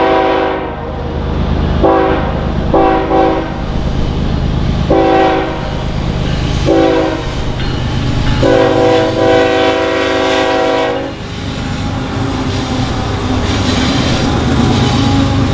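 Freight diesel locomotive's multi-chime air horn sounding a string of blasts, four short and then one long one of almost three seconds, over the heavy rumble of the train passing. After the horn stops, the rumble and clatter of the passing freight cars go on.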